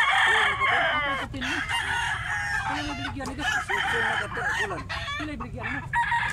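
Roosters crowing again and again, several crows overlapping, loudest in the first second and a half.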